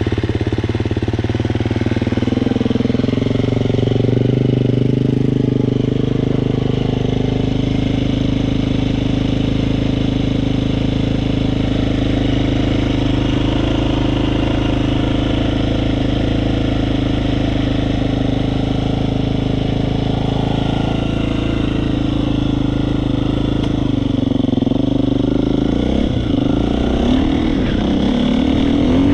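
Husqvarna FE 350's single-cylinder four-stroke engine running steadily at a constant speed with a rattling noise, a fault showing up at only three hours of use. The engine note wavers and shifts near the end.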